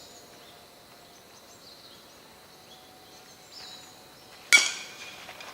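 A single sharp, ringing crack about four and a half seconds in, typical of a baseball struck by a metal bat, over a quiet outdoor background with faint high chirps.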